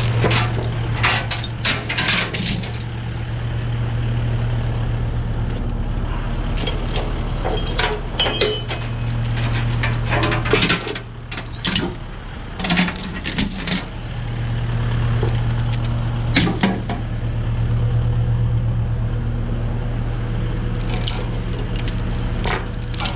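A diesel engine idling steadily with a low hum, over bursts of metal clinking and rattling, several clusters of sharp clanks.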